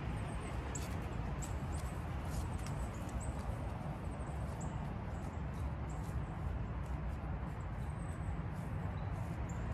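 Steady outdoor background noise, a low rumble under a hiss, with many faint short high ticks and chirps scattered through it.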